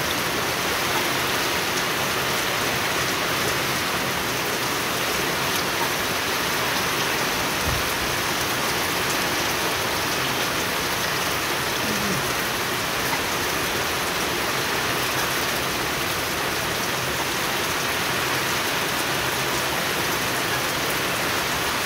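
Steady rain falling on a small pond's water and the wet stones around it, an even hiss of many drops.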